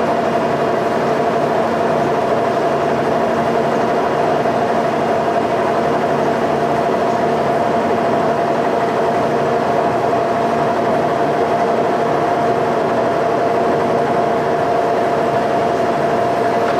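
Horizontal boring mill running with an axis under slow power feed: a steady machine hum with a whine held on one pitch.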